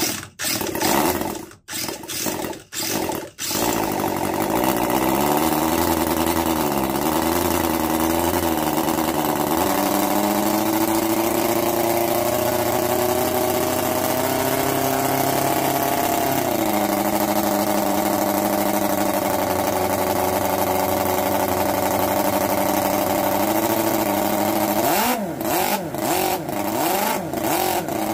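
Miniature 17.5 cc four-cylinder OHV model engine starting with a few stuttering catches, then running steadily with its pitch wavering and rising at times. Near the end it is revved up and down in quick blips.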